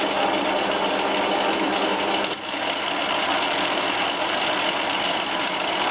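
Small bench lathe driven by a converted treadmill DC motor running steadily under its variable-speed controller, the gearing and motor making a steady mechanical whine, with a brief dip about two seconds in.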